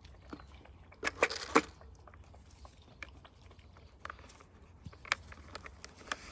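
Dalmatians nosing and mouthing a plastic treat-dispensing puzzle toy full of kibble. A quick cluster of sharp plastic clicks and rattles comes about a second in and is the loudest part, then scattered single clicks and chewing follow.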